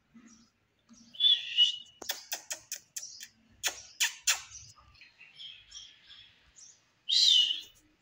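Indian ringneck parakeet giving a short, harsh call, then a run of sharp clicks, and a second loud call near the end.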